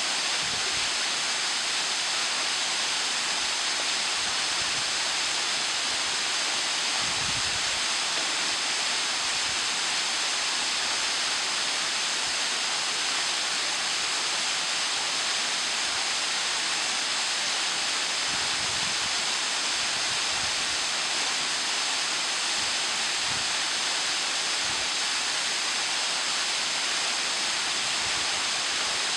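Waterfall pouring into a plunge pool: a steady, even rush of falling water, with a few faint low thumps underneath.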